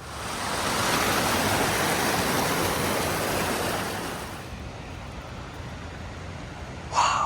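Rushing water of a waterfall, a loud steady rush that fades down after about four seconds to a fainter one. Near the end, one brief high-pitched cry.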